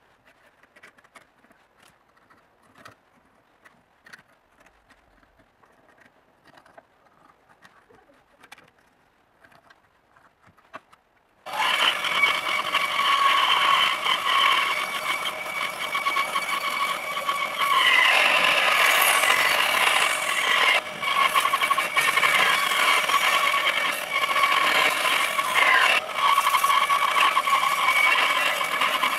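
Faint scratching and light taps for about the first ten seconds. Then, suddenly, a bandsaw runs loudly while cutting a thick hardwood block along a curved line, a steady whine over the noise of the cut.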